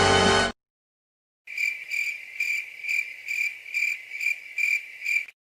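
Crickets sound effect: a cricket chirping in a steady, evenly spaced rhythm, about two or three high chirps a second, the stock "awkward silence" cue. It begins after a loud music cue cuts off half a second in and a second of silence.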